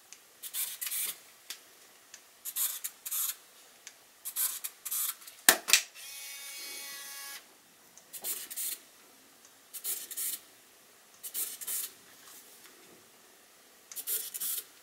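Pentax Espio 120SW compact film camera being worked by hand, its lens motor giving about seven short whirs, several in pairs. About five and a half seconds in, the shutter fires with a sharp click, followed by the film-advance motor winding on with a steady whir for about a second and a half.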